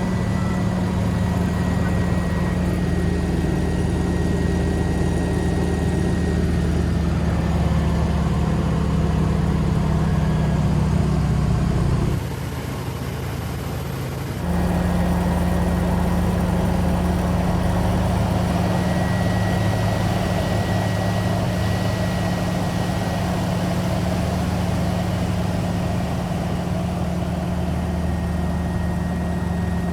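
Yak-18T's nine-cylinder Vedeneyev M-14P radial piston engine running steadily. The sound drops for about two seconds some twelve seconds in, then returns at full level.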